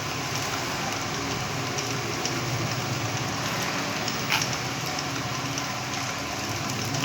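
Home-made peanut grinder running: a 200-watt electric motor drives a washing-machine gearbox and a No. 12 grinding mill, with a steady crackling hiss of peanuts being ground over a low motor hum. The machine runs smoothly, with almost no noise of its own.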